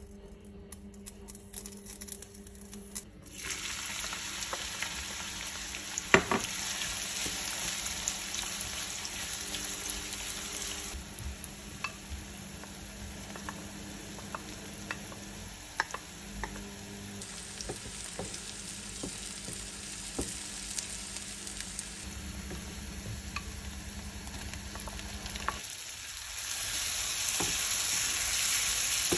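Food sizzling in hot oil in a non-stick frying pan (spices, onion and then a tomato masala), with a wooden spatula stirring and clicking against the pan. The sizzle starts a few seconds in and is loudest near the end.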